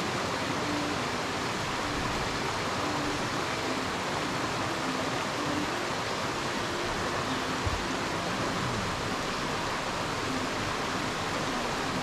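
A waterfall's water rushing steadily.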